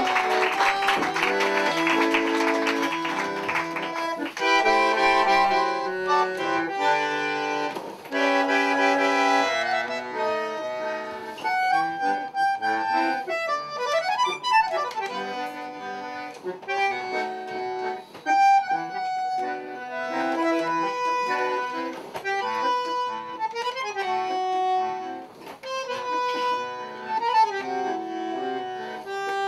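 Solo bandoneón playing a melody over chords.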